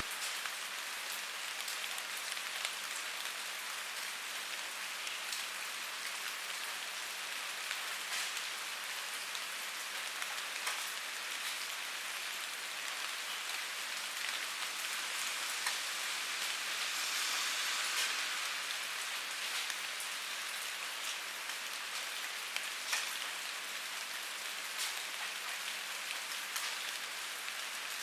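Rain falling on and dripping through a rain gutter: a steady hiss with scattered sharp drip ticks, swelling a little about two-thirds of the way in.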